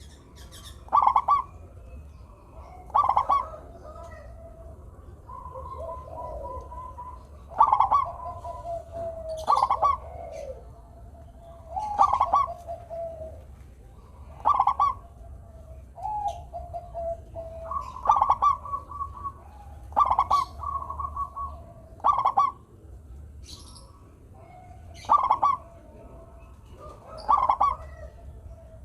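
Zebra doves (perkutut) cooing over and over. A short burst of quick notes comes roughly every two seconds, and several bursts trail off into a longer, lower coo.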